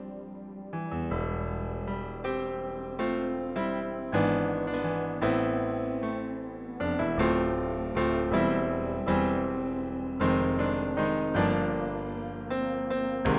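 MIDI music rendered by a Sound Blaster Live sound card with Creative's 4 MB soundfont: a tune of struck electric-piano-style keyboard notes, with a sustained bass coming in about a second in.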